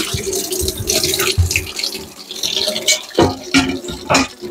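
A tap running into a sink as dishes are washed, with several sharp knocks and clatters.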